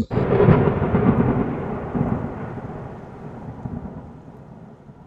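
Intro sound effect: a sudden, loud, thunder-like rumbling boom that starts at once and slowly fades away over several seconds.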